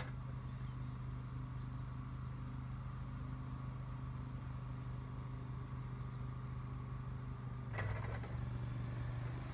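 Boxer 427 mini skid steer's engine running steadily. About eight seconds in it gets a little louder, with a rattle over the engine note.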